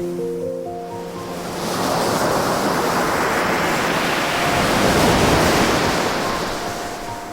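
Ocean wave washing in, its rush swelling from about two seconds in to a peak and then ebbing away, over soft music with held notes.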